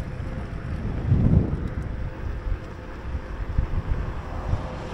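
Wind buffeting the microphone of a bicycle rider moving at speed: a low, uneven rumble with a stronger gust about a second in.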